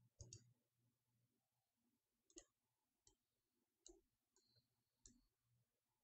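Near silence broken by about six faint, sharp computer-mouse clicks, two close together at the start and then about one a second, as the on-screen map is dragged.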